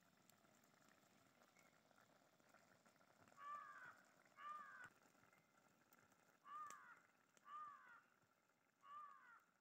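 A crow cawing five times, faintly: two short caws, a pause, then three more.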